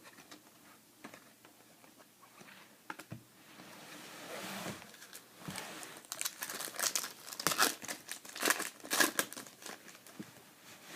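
A foil trading-card pack wrapper being torn open and crinkled. After a few soft clicks of card handling, the loudest, densest crinkling comes in the second half.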